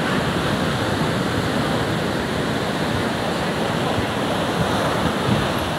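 Ocean surf breaking and washing up the beach, a steady, unbroken noise.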